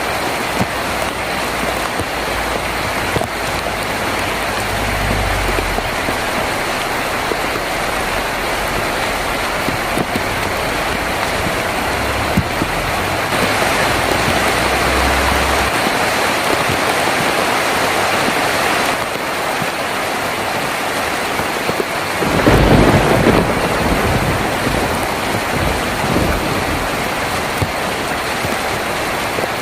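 Heavy rain drumming steadily on a tin roof, with thunder rumbling low a few times and a louder roll of thunder about three-quarters of the way through.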